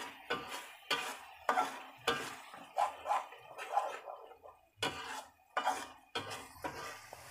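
Metal spatula stirring and scraping thick tomato sambal in a metal wok, with a clink of metal on metal at each stroke, about two strokes a second and a short pause just past the middle. The sambal is being cooked down until its liquid reduces.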